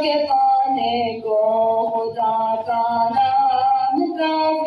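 A boy singing a devotional Urdu hamd solo into a microphone, in long held notes that step from pitch to pitch with short breaks between phrases.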